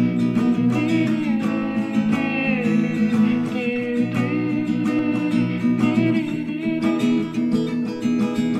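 Acoustic guitar being strummed, with a wordless sung melody over it during roughly the first half. The voice stands in for an electric guitar lead line. The player himself hears the playing as a bit out of tune.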